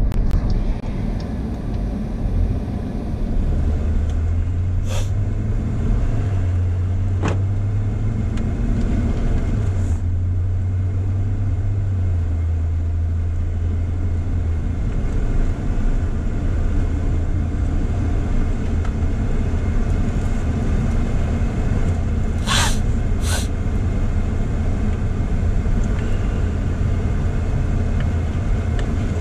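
Car driving slowly on a paved road, heard from inside the cabin: a steady low engine and road rumble whose engine note shifts a few times. A few short sharp clicks or knocks come through, including two close together about three-quarters of the way through.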